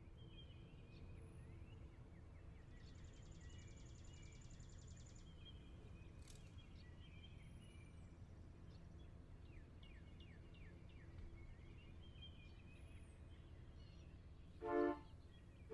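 Faint birds chirping over a low, steady rumble of background noise. Near the end a loud pitched note sounds as music begins.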